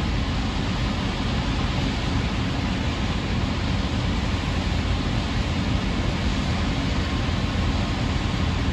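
Steady low rumble of a ship's engine heard on deck, under an even rushing of wind on the microphone, with no breaks or distinct events.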